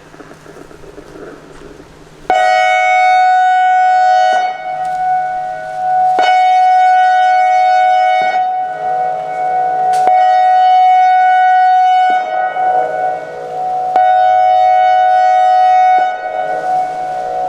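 ACA AR-1600 Alertronic electronic outdoor warning siren sounding its pulsed horn signal. It gives four loud, steady, buzzy horn blasts of about two seconds each, with pauses of about two seconds between them; the first blast starts about two seconds in.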